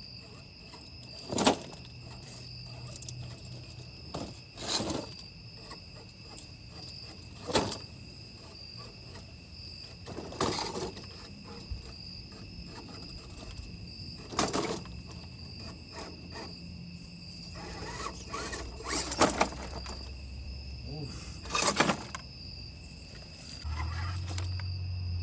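A metal-upgraded 1:10 RC crawler truck dropping down stone steps. Its tyres and chassis knock sharply onto each step about every three seconds, about seven drops in all. Under the knocks is a steady, shrill, high drone of night insects.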